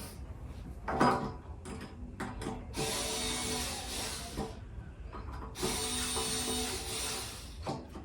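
A power screwdriver runs twice in short spells of about a second and a half, driving the hinge screws in lightly, with a few clicks and knocks of handling the hinge hardware in between.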